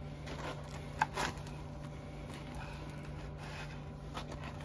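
Bread knife sawing through the crisp crust of a round loaf: a rasping scrape, with a couple of louder strokes about a second in.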